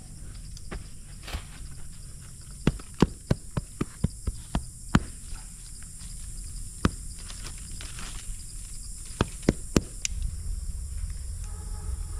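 Steady high-pitched insect chorus, with a run of sharp clicks and knocks about three to five seconds in and a few more between nine and ten seconds.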